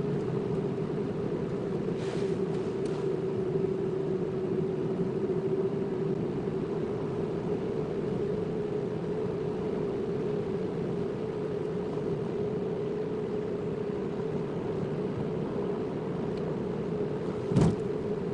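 Car driving, heard from inside the cabin: a steady drone of engine and road noise. One sharp thump near the end, like a wheel hitting a bump or pothole.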